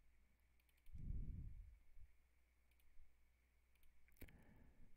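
Near silence with a few faint computer mouse clicks, including a sharper click near the end, and a soft low thump about a second in.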